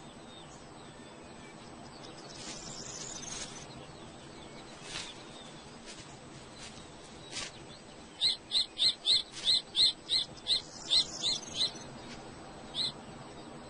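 A bird calling in a rapid run of short, high-pitched notes, about three a second, for roughly three and a half seconds, then one more single note a second later. Before the calls there is only faint outdoor background with a few soft rustles.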